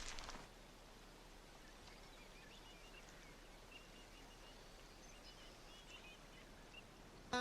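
Faint outdoor ambience with scattered faint, high bird chirps.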